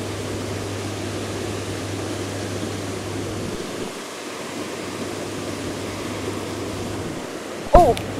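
Steady rushing of river water, an even hiss. A brief voice sound cuts in near the end.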